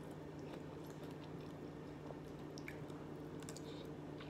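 Faint mouth-closed chewing of shrimp and rice, with a few soft, scattered clicks from the plastic fork and the food, over a steady low hum.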